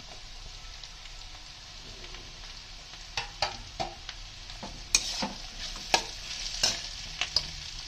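Chopped vegetables and mushrooms sizzling in oil in a steel kadhai on high flame. From about three seconds in, a metal spatula scrapes and clinks against the pan as they are stirred.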